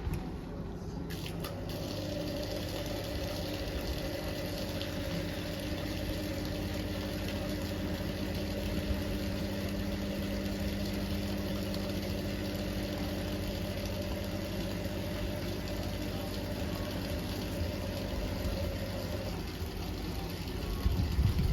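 Hoover vacuum cleaner running with an incorrect drive belt fitted, which leaves it struggling to work. Its steady hum has several held tones and settles in about a second or two in.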